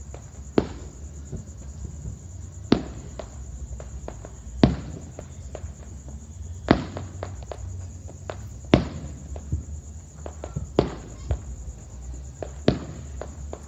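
Aerial fireworks shells bursting, a sharp boom about every two seconds with smaller pops and crackles in between. A steady high-pitched trill runs underneath.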